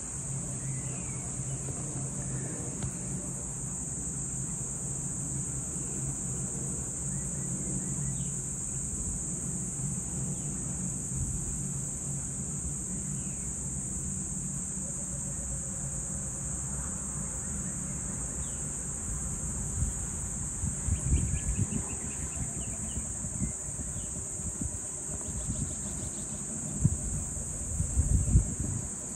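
Steady high-pitched insect chorus of crickets, with a low steady hum in the first half. Irregular low rumbles come and go in the last ten seconds.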